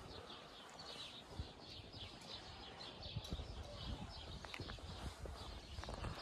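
Small birds chirping over and over in a quick, steady run, with footsteps and light knocks on a dirt-and-stone path.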